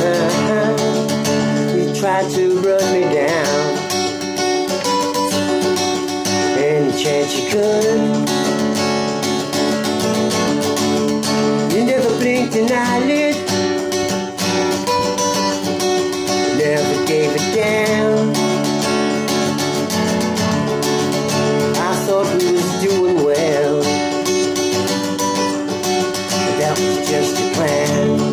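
Acoustic guitar played as song accompaniment: chords held and picked in a steady, even run.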